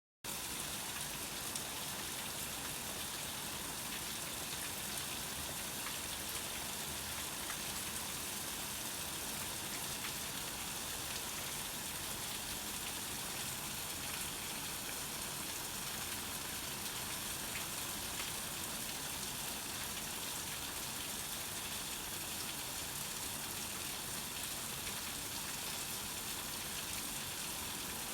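Steady rain, an even hiss with faint scattered drop ticks, keeping the same level throughout.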